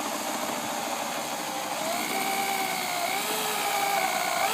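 Power drill running a 1/4-inch bit into a deadbolt lock cylinder, boring out the pins. A steady motor noise, with a whine from the bit cutting that comes in about two seconds in and wavers slightly in pitch.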